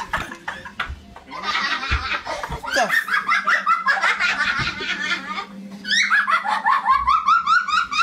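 High-pitched, hearty laughter in quick ha-ha pulses, starting about a second and a half in and getting louder about six seconds in.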